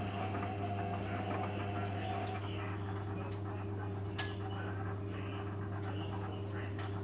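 Beko WMA 1510 washing machine running its main wash, a steady low hum. A higher whine over it stops about two seconds in, and a single sharp click comes about four seconds in.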